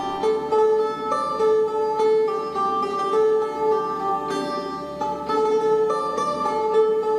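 Background music with a plucked-string melody.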